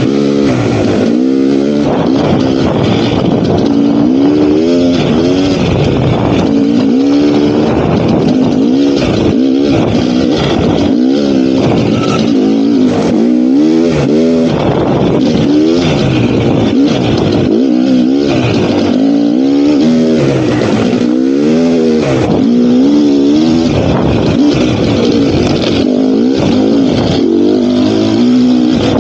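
GasGas dirt bike engine revving up and falling back over and over as the throttle is worked on and off along the trail, its pitch rising and dropping every second or two.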